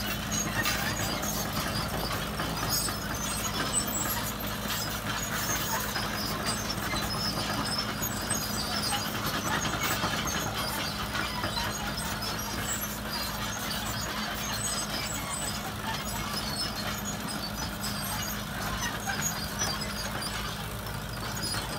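Caterpillar tracked excavator's diesel engine running at a steady pitch as the machine travels on its tracks, with scattered high squeaks from the running gear.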